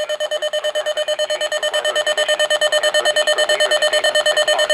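Weather alert radio's alarm beeping in a fast, buzzy pulse, about a dozen beeps a second, and a little louder after about two seconds. It keeps sounding without stopping, which the owner takes for the radio being soft-locked.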